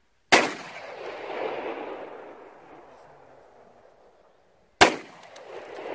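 Two shots from a Beretta M9 9mm pistol, about four and a half seconds apart. Each sharp crack is followed by a long echo that rolls back off the surrounding mountainsides and swells again about a second later before fading.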